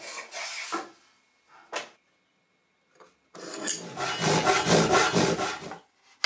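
Hand woodworking tools scraping and rasping on wood: a few strokes at first, then after a short pause a louder run of quick rasping strokes lasting about two and a half seconds.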